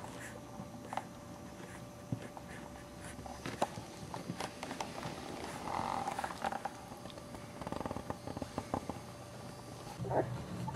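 Boxer puppies moving about on a carpet, making small snuffling and scuffling noises with scattered light clicks, and a short squeak about ten seconds in.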